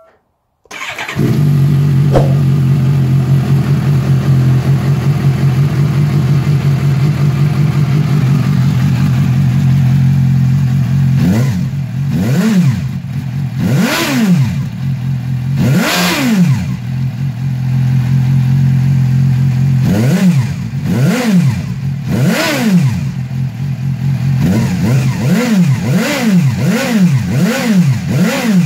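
Suzuki GSR 750's inline-four engine starting about a second in and idling steadily, then revved in short blips, about a dozen, coming quicker near the end. The engine is running after its stuck exhaust control valve has been freed.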